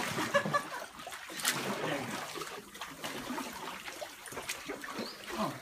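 Kayak paddle blades stroking through calm water: splashing and trickling as the blades dip and lift, with sharper splashes near the start and about a second and a half in.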